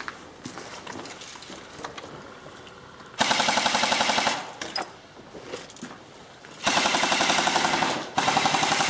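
Airsoft gun firing on full auto: three bursts of rapid, evenly spaced shots, the first about three seconds in lasting just over a second, then two more back to back near the end.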